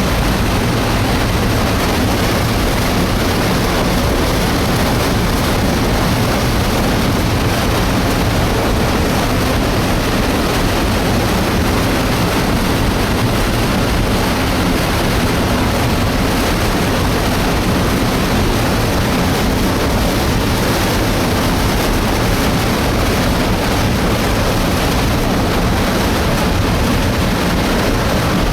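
Debris flow of mud, water and rocks rushing down a mountain torrent channel: a loud, steady rumble, heaviest in the low end.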